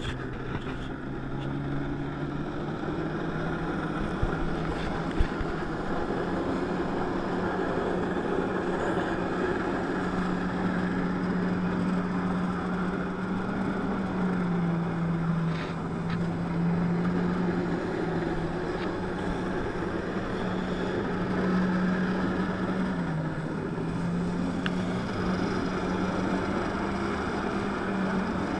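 Jet ski engine running under throttle to drive a flyboard. It rises in pitch at the start, then holds a steady drone that dips and recovers a couple of times as the throttle shifts.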